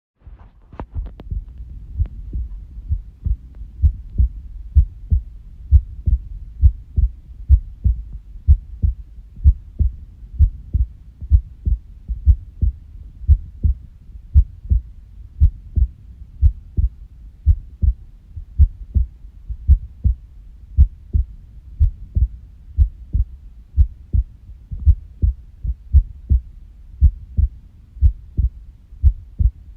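Human heartbeat: low, dull thumps, often in pairs, in an uneven rhythm. It is presented as an irregular heartbeat (arrhythmia).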